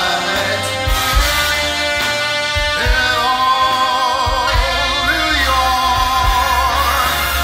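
Live big band music with singing: long held, wavering notes over a beat of drums and bass.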